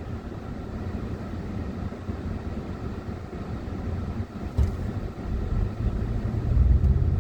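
Road and engine noise inside a moving car's cabin: a steady low rumble that grows louder near the end.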